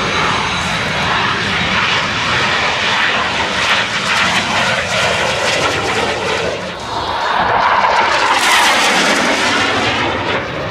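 Fighter jet's engine noise as it flies a low pass over the field: a steady jet roar that swells to its loudest about eight seconds in, sweeping in pitch as it goes by, then eases off near the end.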